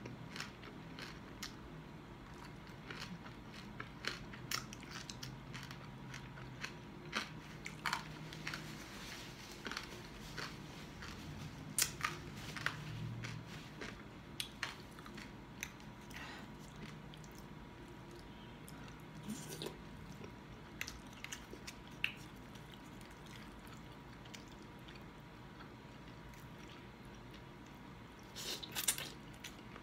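Close-up chewing with scattered crisp crunches: a person eating crispy deep-fried pork skin (lechon kawali). Near the end, a burst of slurping as a forkful of spaghetti is sucked in.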